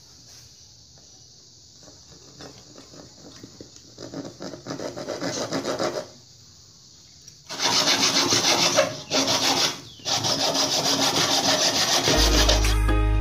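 Hand saw cutting through a wooden strip in quick back-and-forth strokes, quiet at first and louder from about four seconds in, with a pause of over a second partway through. Music comes in near the end.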